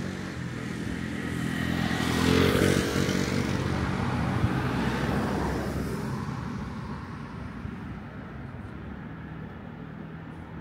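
A road vehicle driving past: engine and tyre noise swell to a peak about two to three seconds in, then fade over the next few seconds. A steady low hum carries on underneath.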